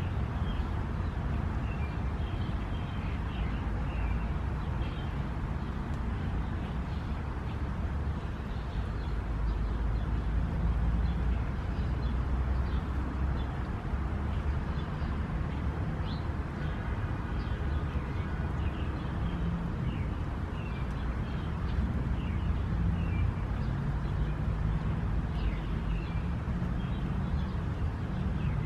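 Steady low outdoor rumble with faint, short bird chirps scattered throughout.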